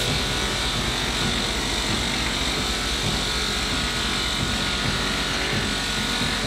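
Bench-mounted finishing wheel spinning with a stainless steel spoon held against it: a steady motor whir with a light rubbing hiss.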